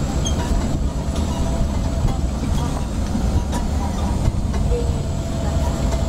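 A vehicle running on the road, a steady low rumble of engine and road noise with a few faint clicks and rattles.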